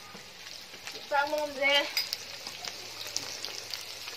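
Chopped greens, herbs and chillies sizzling in hot oil in a steel kadai, a steady hiss with fine crackles. A person's voice calls out briefly about a second in, louder than the frying.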